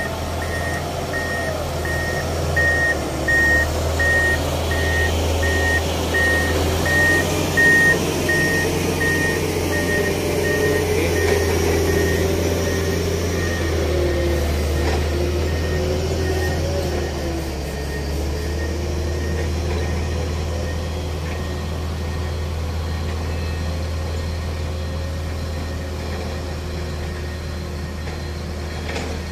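A heavy diesel machine running with a loud, steady low drone while its back-up alarm beeps about once a second. The beeps fade out about halfway through, and the engine runs on, its note shifting a little.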